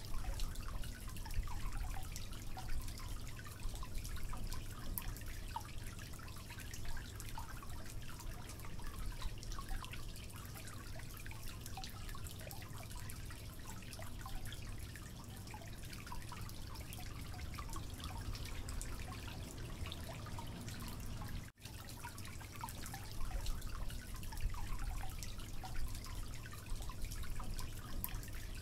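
Water pouring from a spout into a koi pond, splashing and trickling with many small drips and bubbles, over a steady low rumble.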